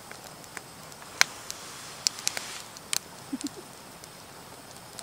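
Campfire crackling: irregular sharp pops and snaps of burning wood, the loudest a little over a second in and a cluster between two and three seconds. Two brief low-pitched tonal sounds come close together about three and a half seconds in.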